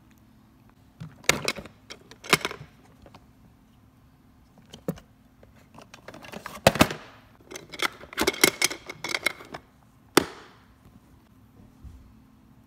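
Irregular sharp clicks and clattering of hard plastic and small objects being handled and knocked together, in several separate bursts, over a faint steady low hum.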